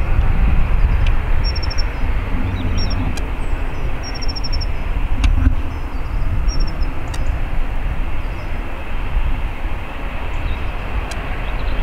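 Distant twin turbofan engines of a KLM Embraer E-Jet airliner running at taxi power as it rolls along the taxiway: a steady rushing rumble, with wind buffeting the microphone.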